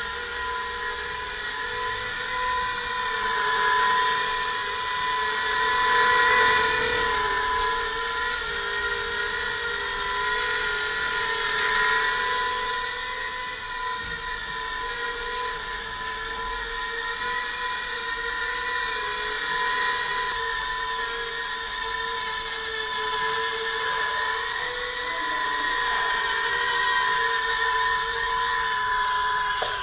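Eachine Turbine QX70 micro quadcopter in flight: a steady high-pitched whine from its small brushed motors and ducted propellers, wavering up and down as the throttle changes. The whine cuts off suddenly at the very end as the motors stop.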